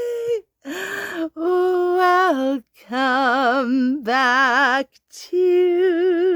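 A woman's voice singing wordless, drawn-out notes in several short phrases with brief breaks between them; the longer notes waver with a steady vibrato.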